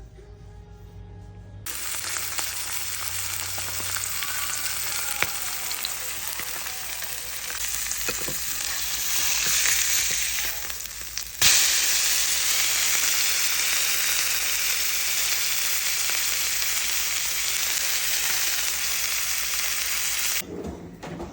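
Food frying in hot oil in a pan: a steady sizzle that jumps suddenly louder about halfway through and then cuts off near the end.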